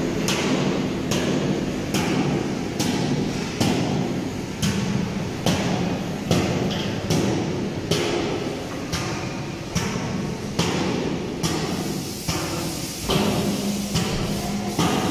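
Heavy, echoing thuds repeating at a fairly even pace, about one a second, over a steady low hum.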